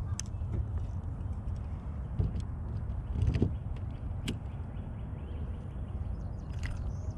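Handling noise: a steady low rumble with a few scattered sharp clicks and knocks, about five in all.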